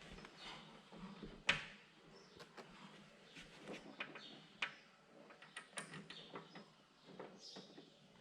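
Scattered light clicks and knocks of a tractor cab door and its hardware being handled while it is fitted and aligned, with one sharper knock about a second and a half in.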